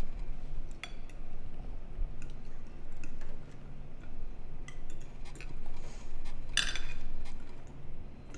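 Cutlery clinking and scraping on china dinner plates while people eat: scattered light clinks, with one louder clink about six and a half seconds in.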